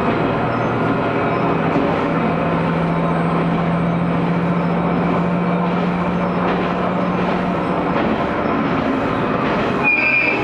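Aizu Railway AT500-series diesel railcar heard from inside while running: steady wheel and track rumble under the low hum of the diesel engine. The engine hum drops away about seven and a half seconds in, and a short high squeal sounds near the end.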